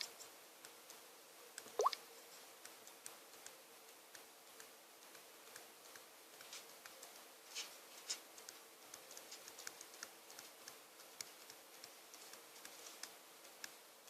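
Faint light taps and clicks of a phone and its packaging being handled, with two short rising pops, at the start and about two seconds in, over a low steady hum.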